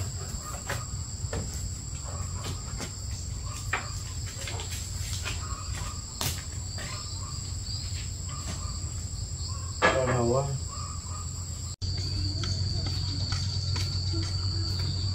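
Steady chorus of crickets ringing high over a low steady hum, with scattered faint clicks.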